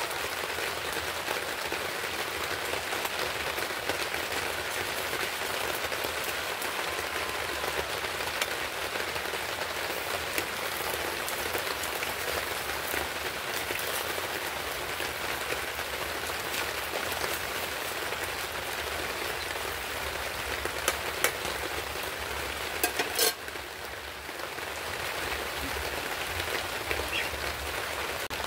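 Small fish frying in hot oil in an iron wok: a steady sizzle and crackle. A few sharp clicks come about three-quarters of the way through, and just after them the sizzle briefly drops before coming back.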